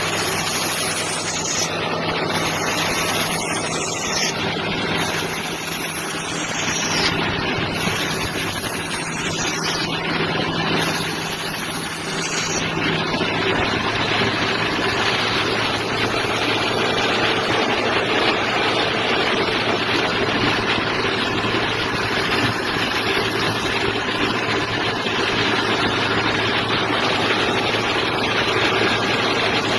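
Brass-cutting lathe running with a steady machine drone, with a run of short, high falling whines about every second and a half to two seconds through the first twelve seconds or so, after which the drone holds steady.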